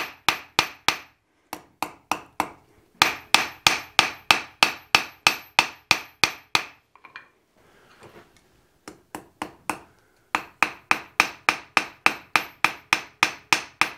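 Hand hammer striking a hot steel bar on an anvil in quick, even blows, about four a second, drawing the end out thinner to form a hook. The blows come in three runs with a pause of a few seconds after the middle run.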